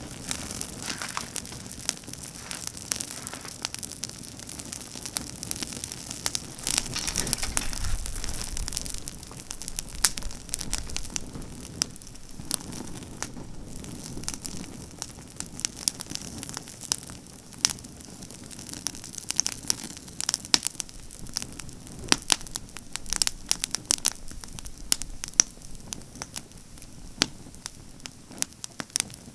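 Pruned pine branches burning hard in a campfire, crackling with many sharp pops and snaps throughout. There is a louder rushing swell of flame between about seven and eleven seconds in.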